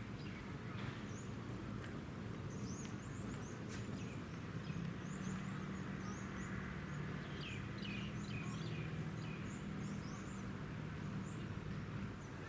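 Small birds chirping, many short high calls in quick succession, over a steady low hum.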